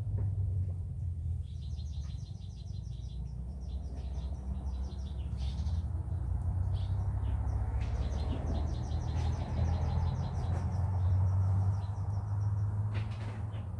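A bird calling in rapid trills of high chirps, in two runs of a few seconds each, over a steady low rumble.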